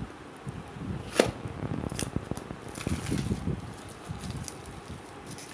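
Clear plastic wrap being slit and crinkled off a cardboard smartphone box, with irregular rustling, a sharp click about a second in and a smaller one near two seconds.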